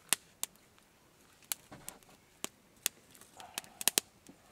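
Scattered sharp clicks and knocks, about nine at irregular intervals, clustering near the end.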